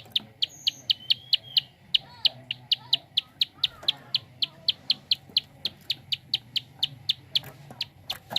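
Prinia (prenjak) giving its fast 'klik' call: a steady series of short, sharp, high ticking notes, about five a second.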